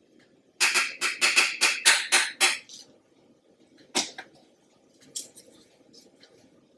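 A utensil stirring thick barbecue sauce in a stainless steel saucepan, scraping and tapping against the pan in a quick run of about ten strokes, followed by one sharp clink about four seconds in.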